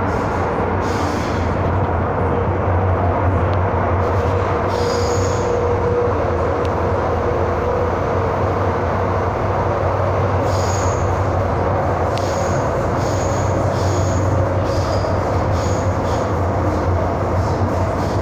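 MTR M-Train electric metro train running between stations, heard from inside the passenger car: a steady rumble and low hum with short high squeals from the wheels, about five seconds in and several more from about ten seconds on.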